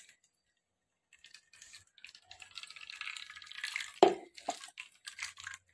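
Wet ground coconut pulp squelching as it is squeezed by hand in a steel mesh strainer, with coconut milk dripping through into the bowl below. The sound starts faint about a second in and builds, with a louder squelch about four seconds in.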